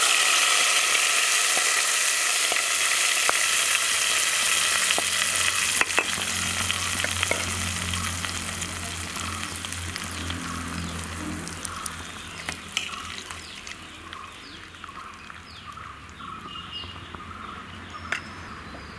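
Hot tempering oil with mustard seeds, dried red chillies and curry leaves sizzling as it is poured into a pot of buttermilk curry. The hiss is loud for the first several seconds, then dies away steadily as the oil cools in the curry.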